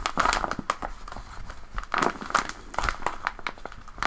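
A paper squishy covered in clear tape and stuffed with memory foam scraps and toy stuffing crinkles and crackles as it is squeezed and released by hand. There are several squeezes, the loudest near the start and about two seconds in.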